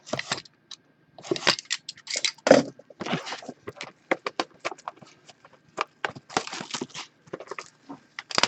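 Crinkling and tearing of plastic wrapping on a pack of football trading cards as it is opened, with cards being handled: a run of short, uneven crackles and scrapes.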